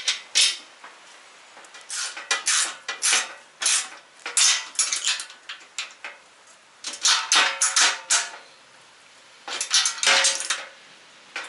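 Ratchet wrench clicking in quick runs, about six bursts with short pauses between, as bolts are tightened into a steel frame, along with light metal clinks of nuts and washers.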